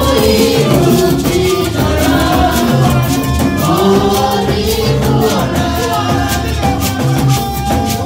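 Live gospel choir singing a song, led into microphones, over a steady beat of shaker-type percussion and drums.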